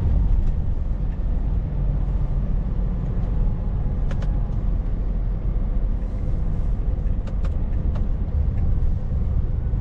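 Scania S 680 truck's 16-litre V8 diesel cruising at a steady speed, a constant deep rumble of engine and tyre noise heard inside the cab.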